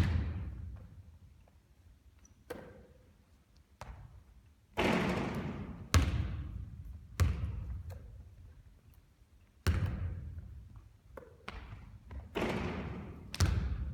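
A basketball bouncing and striking hard surfaces during repeated three-point shooting: about ten thuds at uneven intervals, some with a long ringing decay.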